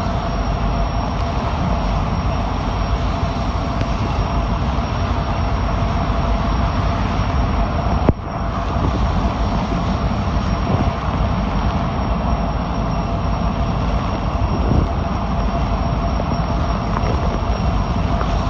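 Severe thunderstorm with microburst winds: heavy rain and strong wind buffeting the microphone in a loud, steady rush. There is one sharp knock about eight seconds in.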